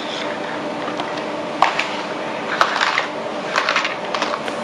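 Steady hum of an ultrasonic welding machine's generator, broken by several short crackles and clicks from handling the plastic washer and waterproof sheet.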